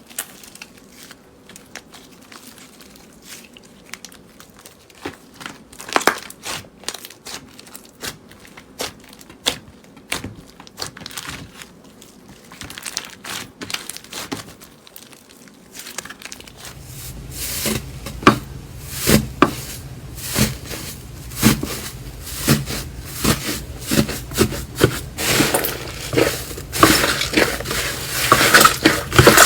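Slime being squeezed and worked by hand, making sticky clicks, pops and crackles. They are sparse and quiet at first, then become much louder and denser about halfway through.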